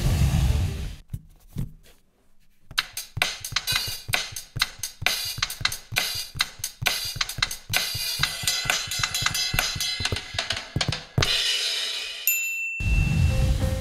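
Virtual drum kit on an iPad drum app (GarageBand's SoCal kit) tapped out by hand: a fast, busy run of kick, snare and cymbal hits lasting several seconds after a brief pause. A short high electronic beep follows near the end, then background music comes back in.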